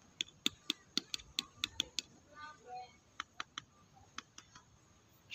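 A quick series of sharp clicks, about four a second, then a few more spaced-out clicks.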